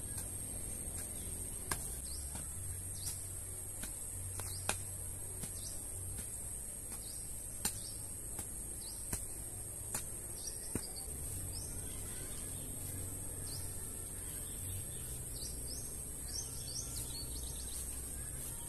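A pickaxe striking and breaking up soil, giving a few sharp knocks spaced roughly a few seconds apart, over a steady high insect drone from crickets, with short bird chirps in the second half.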